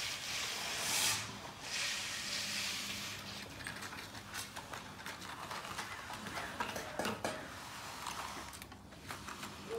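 Long-handled concrete float being swept across the wet slab surface, a rasping hiss in a few strokes through the first three seconds, followed by quieter scattered clicks and scrapes.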